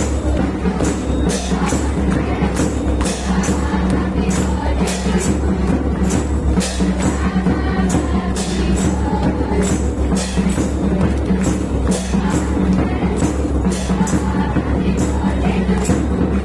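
Background music with a steady beat: a constant bass line under sharp, evenly spaced percussion hits, about two to three a second.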